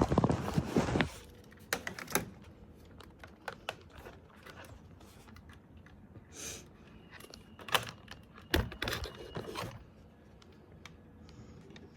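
Scattered clicks and knocks of a small plastic device being handled, with a rustling clatter in the first second and another about nine seconds in.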